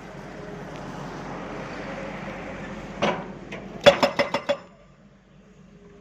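Excavator working on rock: its engine runs steadily, then a sharp knock about three seconds in and, a moment later, a quick run of about six hard strikes on rock, after which the machine noise drops away.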